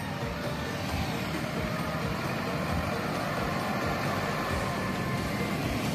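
A light truck loaded with logs drives past close by, its engine running steadily over dense street-traffic noise, louder from about a second in.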